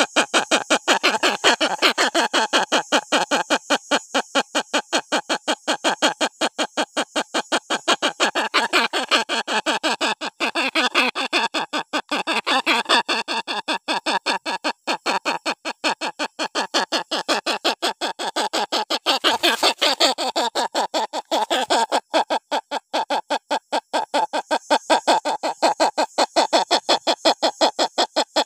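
Hornbill calling: a continuous run of rapid, harsh crying notes, about five a second.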